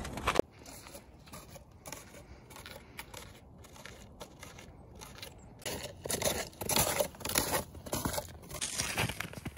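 Snowshoes crunching on packed snow step after step, faint at first and louder and more regular from about six seconds in, at roughly three crunches a second.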